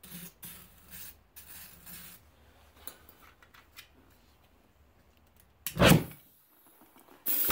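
An aerosol can of starter fluid sprayed in short hisses around a lawn tractor tire's bead, then about six seconds in a sudden loud burst as the fluid vapour is lit to blow the bead onto the rim, which fails to seat it. Near the end a steady hiss of compressed air starts.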